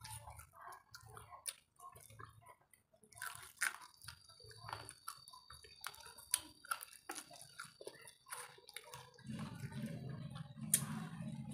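Close-up eating sounds: chewing and slurping of spicy fried instant noodles, with many small wet clicks and smacks of the mouth. A steady low hum comes in near the end.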